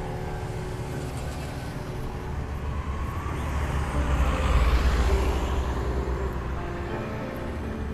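A vehicle passing by: a low rumble and rushing noise that swell to their loudest about halfway through and then fade, laid into the song with its music faint underneath.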